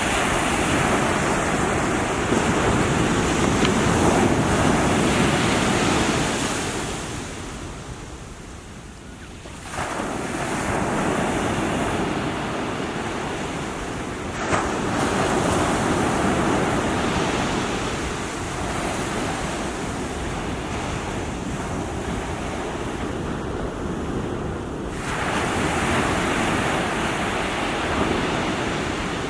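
Small waves breaking and washing up a shore, swelling in three surges with quieter ebbs between them, with wind noise on the microphone. One sharp click about halfway through.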